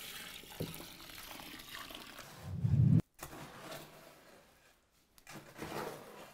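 Red pigmented water poured from a bucket onto dry concrete mix in a wheelbarrow, splashing steadily and ending in a heavier low gush about three seconds in. After a sudden cut, fainter scraping as a long-handled hoe works the wet mix in the wheelbarrow.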